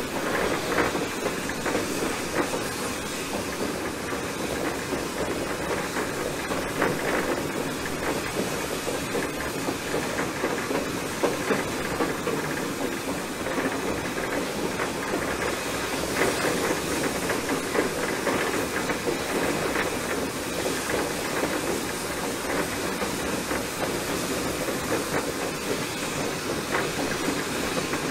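Small 1920 steam locomotive running along the line, heard from its front pilot: a steady hiss of steam over the clatter of wheels on the rails.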